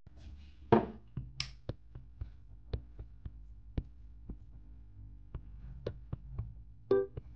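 Scattered light taps and soft rustles of a towel being handled while wet hair is dried, over a low steady hum. A piano note comes in near the end.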